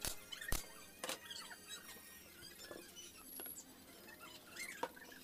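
Sharp knocks from plywood panels of a speaker box being handled and fastened: three in the first second or so and one more near the end. Small high chirping squeaks run throughout.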